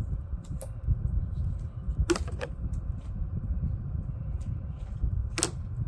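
Black electrical tape being handled and snipped with scissors: a few short, sharp crackles and snips, a pair about two seconds in and another near the end, over a steady low rumble.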